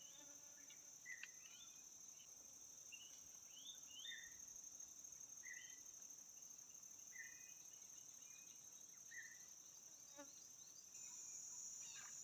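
Faint, steady high-pitched drone of insects such as crickets or cicadas, stepping up louder near the end, with short high chirps every second or two over it.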